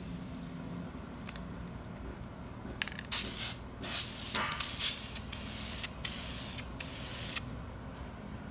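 Aerosol spray can of black paint spraying in about six short bursts, starting about three seconds in, laying on the third coat.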